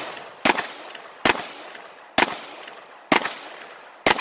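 Gun fired in a steady string, five shots about a second apart. Each shot is followed by a short, fading echo.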